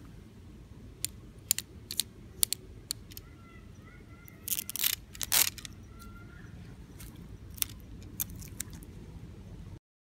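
Wooden woodpecker tape-dispenser automaton: sharp wooden taps, about two a second at first and again near the end, as the woodpecker pecks the trunk. About halfway through comes a louder rasping burst as cellophane tape is pulled off the reel.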